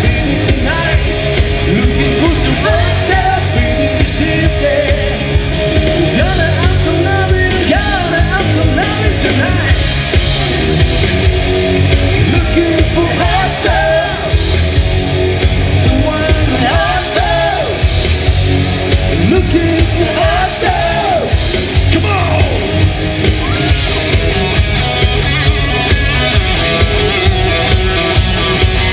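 Rock band playing live: electric guitars, bass and drums, with a woman singing loudly over them.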